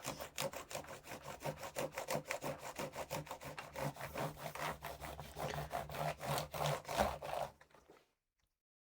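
Cleaning wipe scrubbed quickly back and forth over a laptop's casing, about five rubbing strokes a second, cutting off suddenly about seven and a half seconds in.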